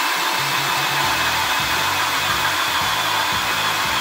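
Einhell 18 V brushless cordless drill running steadily in its low speed setting, its bit boring into a thick wooden rafter: a continuous whirring motor with the bit cutting through the wood.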